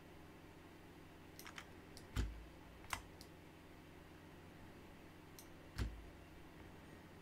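Computer mouse clicking on a desk: several scattered, sharp clicks, the two loudest with a dull knock, about two seconds in and again near the end, over a faint steady hum.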